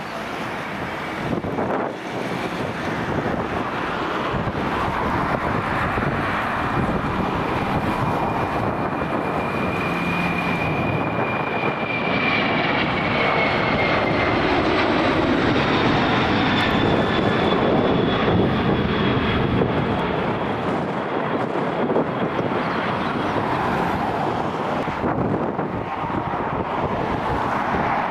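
Airliner taking off, its engines at takeoff power in a loud roar that builds to a peak past the middle and then eases. A high whine falls in pitch as the aircraft passes.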